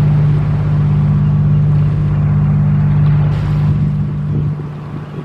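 An engine running steadily with a low, even hum, which drops in level near the end.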